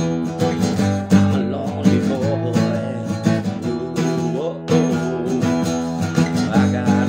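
Acoustic guitar strummed in chords, the strokes coming in a steady rhythm.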